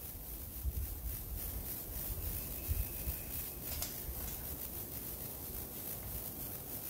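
Wind buffeting the microphone: a steady rough rumble with hiss, and a single sharp click a little before four seconds in.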